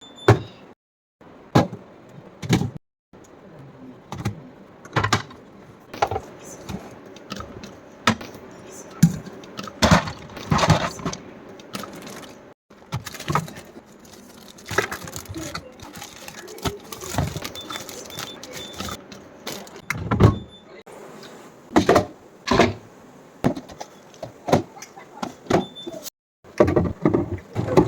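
Food containers and items being handled and set down in a refrigerator: repeated knocks, clunks and light rattles, broken by a few abrupt gaps.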